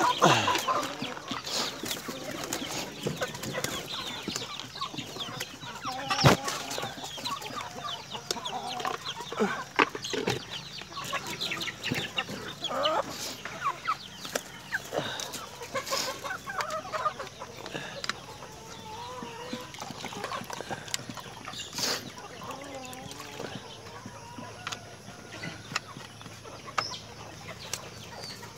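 Chickens clucking, mixed with flurries of wing flapping and scuffling as birds are grabbed by hand in the pen.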